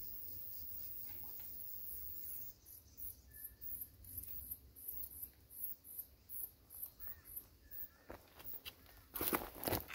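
Insects calling in a high buzz that settles into a regular pulsing, about three pulses a second. A short, loud burst of close handling noise near the end is the loudest sound.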